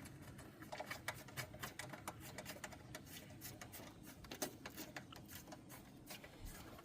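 Faint, irregular clicking and light rattling of small metal screws being handled and set back into their holes by hand.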